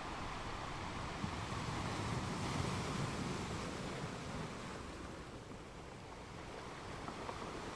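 Ocean surf: a steady wash of waves that swells about two to three seconds in, then eases off.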